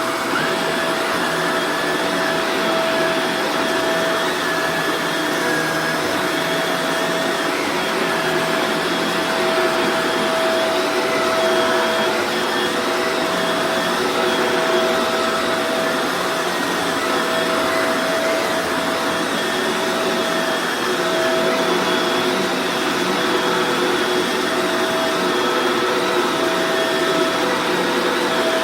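Vacuum cleaner running steadily on carpet, a constant rushing of air under a steady whine from its motor.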